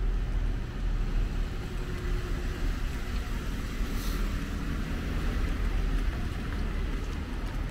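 Steady low rumble of city street traffic, with a brief hiss about four seconds in.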